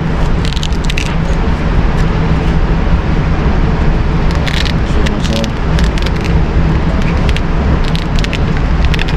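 Steady low rumble with scattered light clicks and rustles, from a pistol holster being handled close to the microphone.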